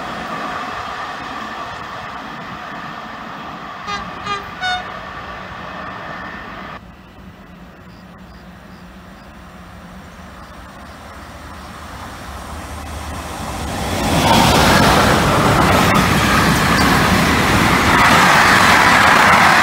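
Electric-hauled intermodal freight train passing close at speed, its container and trailer wagons making a loud steady rumble and rail clatter over the last five seconds. Before that, the fading noise of a departing train, with three short train-horn toots about four seconds in.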